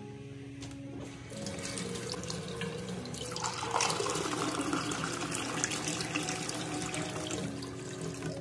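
Tap water running into a bathroom sink, starting about a second in and splashing louder from about three and a half seconds as a ceramic mug is rinsed under the stream. Soft background music plays underneath.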